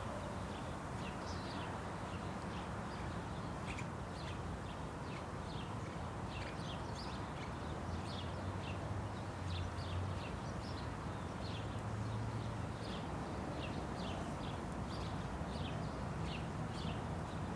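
A small bird chirps over and over, short high chirps about once or twice a second, over a steady low outdoor noise.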